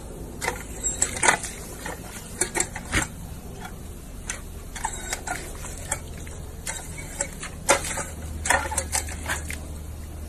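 German Shepherd drinking at a paw-operated step-on water fountain: irregular clicks and wet splashes as it presses the plastic pedal and laps and snaps at the spurting water.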